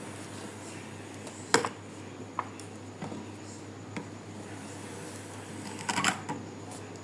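Kinetic sand being sliced with a knife: a few sharp taps and clicks, the loudest about one and a half seconds in and a short cluster near the end, over a steady low hum.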